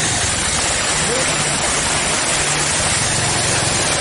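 A vehicle's engine running steadily under a loud, even rushing noise of moving through a flooded street.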